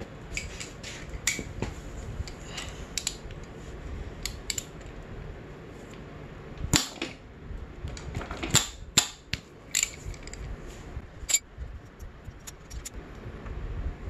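Scattered metallic clicks and clanks as a socket wrench works the front countershaft sprocket bolt of a Honda CRF250R loose and the sprocket is handled off its shaft, the loudest few between about 7 and 11 seconds in.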